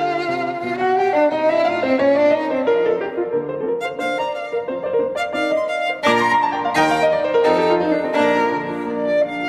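Background music: a violin melody over piano accompaniment, with a fresh louder phrase coming in about six seconds in.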